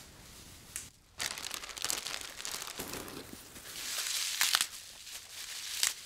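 Curly kale leaves crushed and torn by hand and packed into plastic bags: irregular crinkling and rustling with sharp crackles, starting about a second in and loudest a little after the middle.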